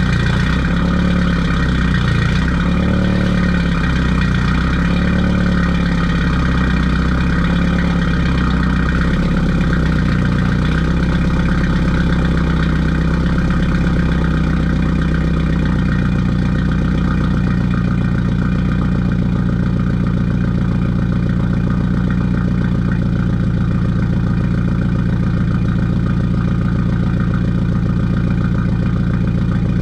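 BMW 428i Gran Coupe's N20 turbocharged four-cylinder idling, heard from behind its exhaust tips on an exhaust fitted with a DPW cutout. The idle note wavers for the first fifteen seconds or so, then settles steady and a little quieter.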